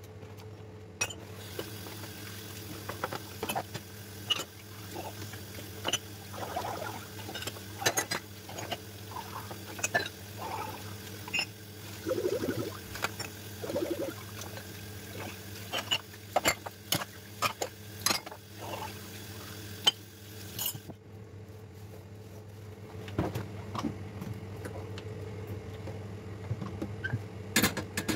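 Dishes being washed by hand at a kitchen sink: a sponge squelching in soapy water, tap water running, and dishes and glasses clinking and knocking. The running water stops about three-quarters of the way through, leaving a few sharp clinks of glassware near the end over a steady low hum.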